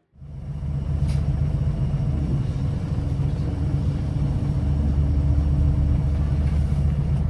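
Scania L94UB bus's diesel engine idling as a steady low rumble, heard from inside the passenger saloon.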